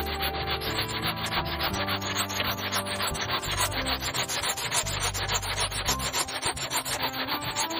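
Hand saw cutting through a wooden log, with quick, even rasping strokes of the blade back and forth in the cut.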